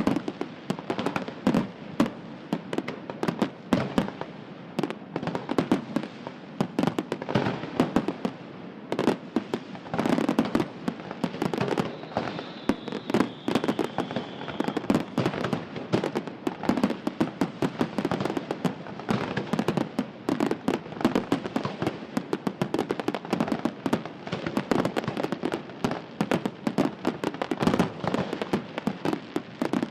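Fireworks display: a dense, continuous barrage of bangs and crackling from bursting shells. A faint whistle slides slightly downward about twelve seconds in.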